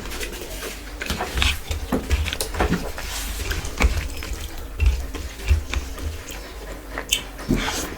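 Close-miked eating sounds: irregular wet chewing and mouth smacks, several a second, from someone eating rice and curry.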